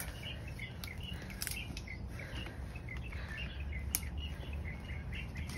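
Small birds chirping in quick, irregular calls over a steady low background, with a few sharp clicks, the loudest about four seconds in.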